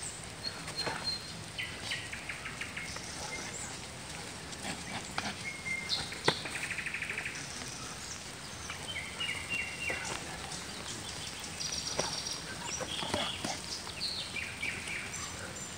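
Woodland birds singing: several short high whistles and a rapid trill about six and a half seconds in. Scattered footsteps and scuffs on wet, muddy ground, with a sharp knock about six seconds in.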